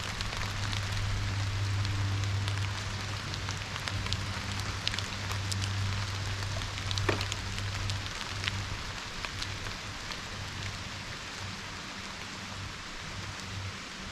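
Steady rain falling, an even hiss with scattered louder drops ticking on nearby surfaces, over a steady low hum.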